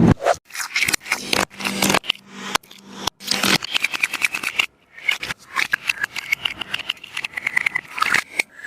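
A handmade taba squishy being squeezed and handled, giving rapid, irregular crinkly crackles and clicks.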